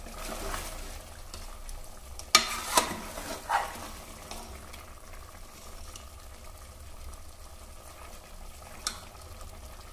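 Mutton and masala frying in an aluminium pressure cooker, sizzling steadily while a steel ladle stirs them. The ladle clinks sharply against the pot three times between about two and four seconds in, and once more near the end.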